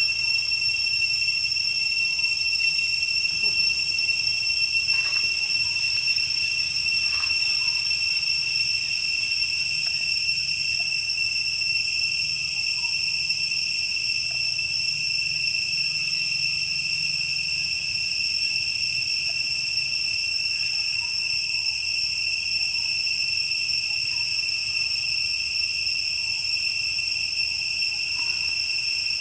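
Steady, high-pitched chorus of insects trilling without a break, with a few faint short sounds over it.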